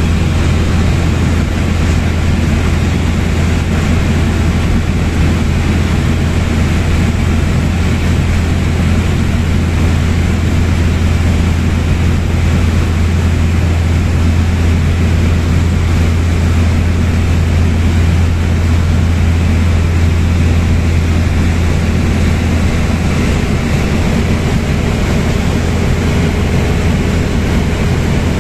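Engine and propeller of a single-engine light aircraft running steadily in flight, heard from inside the cabin as a loud, even drone with a strong low hum.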